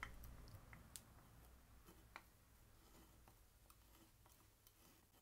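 Near silence, with a few faint, sharp clicks of metal parts being handled on a cast-iron hand plane, the clearest about a second in and just after two seconds.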